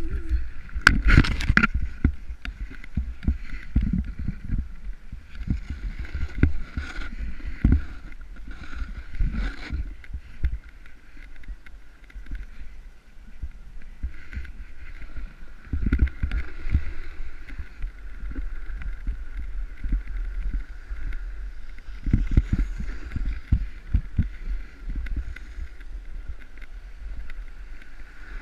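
Snowboard riding over snow, heard from a camera worn by the rider: continuous scraping and rumbling with irregular knocks and thumps, and wind on the microphone. A faint steady high hum runs underneath.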